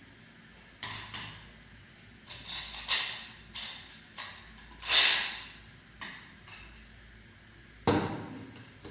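Scattered knocks and scrapes of objects being handled, with a loud brief swish about five seconds in and a sharp knock near the end.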